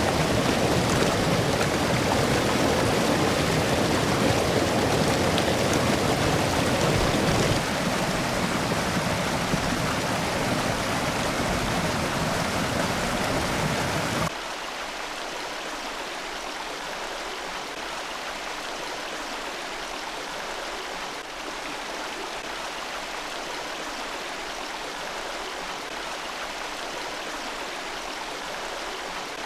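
Mountain creek water rushing over rocks in small waterfalls, a steady, full splashing rush. About halfway through it cuts abruptly to a quieter, thinner flow with little low rumble.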